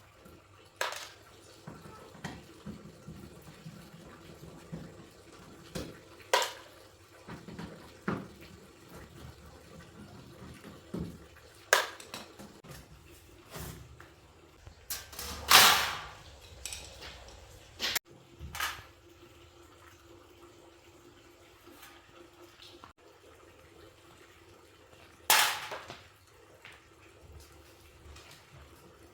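Irregular knocks, clicks and clatter of hands and tools working on parts, with two louder short rushing bursts, one about halfway through and one near the end.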